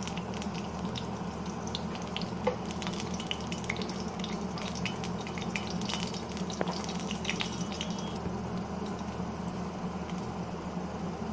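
Desi ghee heating in a metal kadhai, a steady faint sizzle with many small scattered crackles over a low steady hum.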